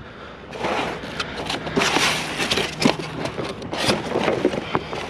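Rummaging through a pile of discarded junk: irregular rustling and scraping of items being shifted, with scattered sharp clicks and knocks.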